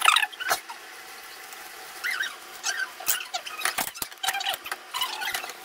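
Plastic bag rustling and crinkling with squeaks, among scattered small knocks and clicks of things being handled at an open refrigerator.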